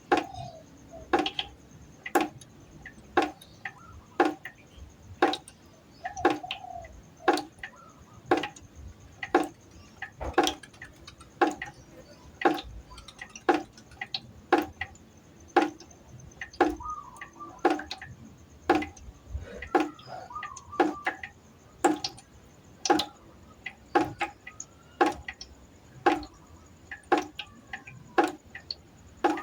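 Water droplets dripping into a pot, about one drop a second. Each drop is a short, sharp plop with a brief pitched ring.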